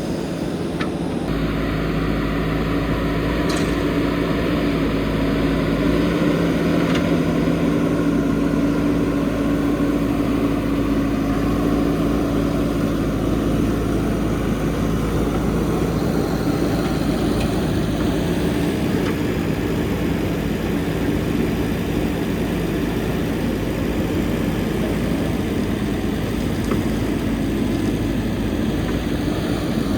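JCB backhoe loader's diesel engine running steadily under work, a constant engine drone with a faint rise in low rumble about a second in.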